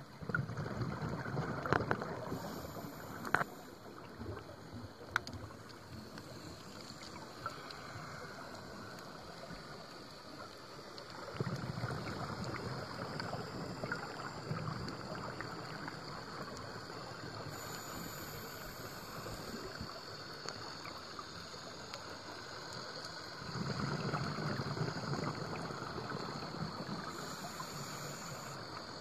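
Underwater ambience with a scuba diver's exhaled regulator bubbles rushing and gurgling in three spells, one breath about every eleven to twelve seconds. A few sharp clicks come in the first few seconds.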